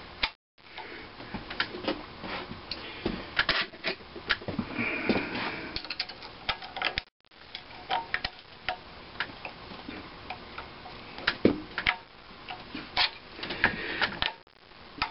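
Irregular small metallic clicks, taps and scrapes as a coil return spring is worked onto the rocker arm of a 1927 McCormick-Deering Type M engine with a twisted copper pull-wire and a hand tool. The sound cuts out briefly twice, once near the start and once about halfway.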